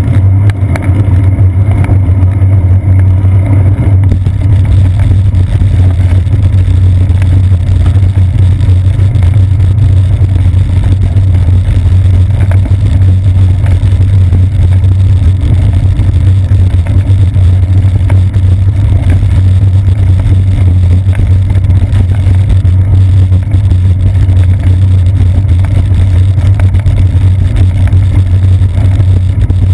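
Loud, steady low rumble of wind buffeting and road vibration picked up by a seat-post-mounted GoPro Hero 2 action camera in its housing as the bicycle rolls along.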